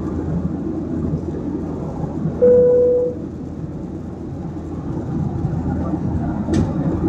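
Steady cabin noise of a Boeing 737 airliner in flight, heard inside the cabin: a low rumble of engines and airflow. About two and a half seconds in, a steady beep-like tone sounds for under a second, and a short click comes near the end.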